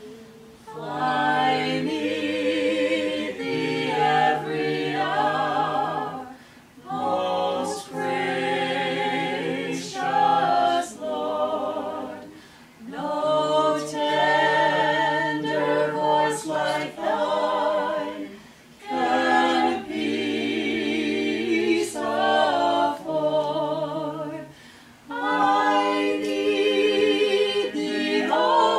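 A small group of men's and women's voices singing a cappella in harmony, a vocal quartet. The song goes in phrases of about five or six seconds, with short breaths between them.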